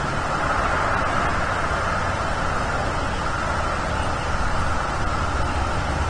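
Steady wind noise on an outdoor nest-camera microphone, an even rushing hiss with a low rumble underneath.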